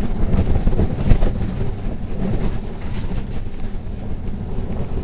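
Neoplan city bus heard from inside the passenger cabin while driving: a steady low engine and road rumble, with short rattles from the body now and then.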